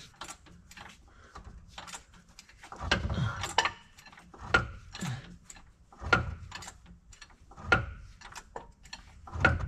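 Irregular metal clicks and clunks from a hydraulic jack and a transmission being worked into place, with a heavier knock about every second and a half.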